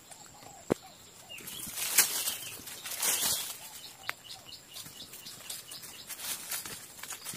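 Hands rustling through leaves and twigs and scraping loose soil while digging out a young shrub by its roots, with a few sharp clicks of snapping twigs, the loudest about two seconds in.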